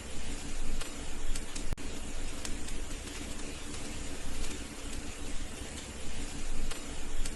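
Wood fire burning in a fireplace: a steady hiss with scattered crackles and a sharp pop about two seconds in.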